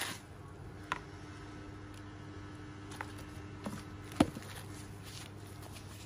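Hands handling a plastic-wrapped parcel. A brief rustle comes at the start, then a few light taps and clicks, the sharpest about four seconds in, over a low steady hum.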